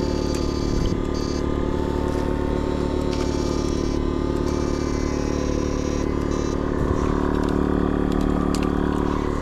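Electrofishing machine humming steadily, with a high whine that cuts in and out about four times as the current is switched on and off.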